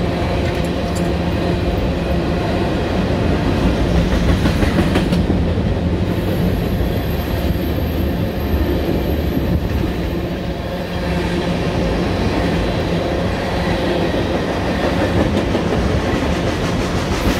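Freight train of tank cars rolling past, the wheels running steadily on the rails.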